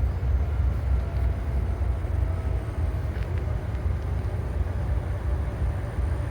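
Low, steady rumble of diesel freight locomotives running near the tracks.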